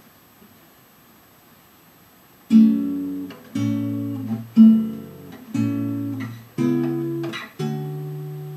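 Acoustic guitar playing slow chords, about one a second, starting a couple of seconds in after near quiet; the last chord is left to ring and fade.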